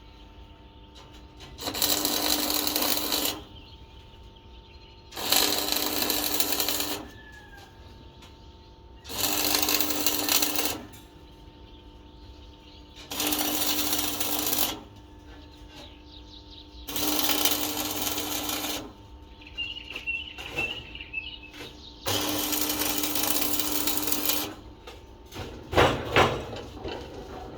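Electric arc welder laying a series of short welds: six bursts of arc noise, each about one and a half to two seconds long, roughly every four seconds. A couple of sharp metal knocks follow near the end.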